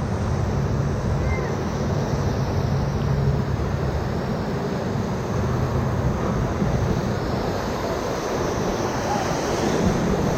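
Whitewater rapids rushing steadily around a raft, with wind on the microphone.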